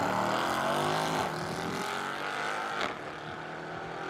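Car engines accelerating hard down a drag strip, rising in pitch through the gears over the first couple of seconds and fading as the cars pull away.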